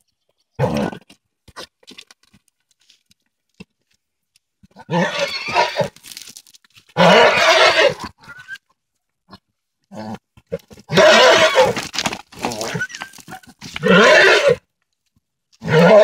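A horse and a pony calling out during rough play-fighting: about five loud calls of roughly a second each, spaced a few seconds apart.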